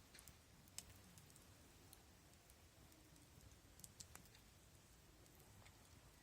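Wood fire in a Picogrill brazier crackling faintly, with sparse, irregular sharp pops. There is a strong pop about a second in and a small cluster of pops about four seconds in.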